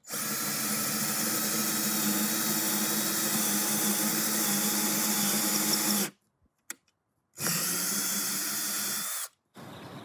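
Cordless drill with a quarter-inch bit boring into a block of wood: the motor runs steadily for about six seconds, stops, then runs again for about two seconds.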